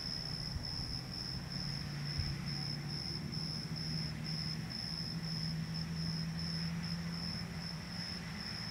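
Cricket chirping outdoors in a steady high-pitched pulsing trill, about three pulses a second, over a low steady hum.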